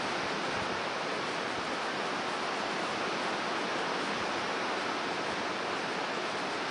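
Steady rushing noise of storm wind and rough sea surf breaking on a rocky shore.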